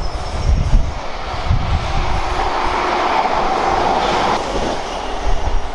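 South Western Railway Class 450 Desiro electric multiple unit running past: a steady rush of wheels and running gear that swells through the middle and eases off about four and a half seconds in.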